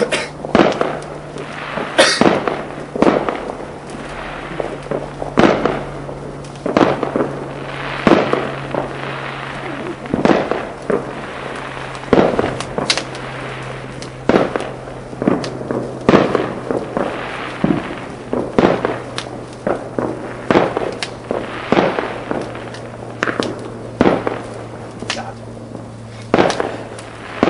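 Fireworks going off one after another: a long irregular run of sharp bangs and cracks, roughly one or two a second, over a low steady hum.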